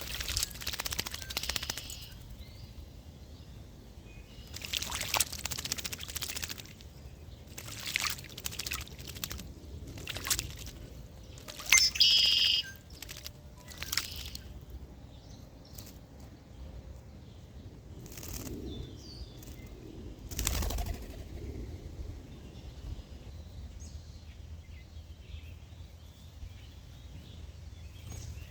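Birds: several short rustling, fluttering bursts spread through the stretch, and one loud, harsh pitched call about twelve seconds in.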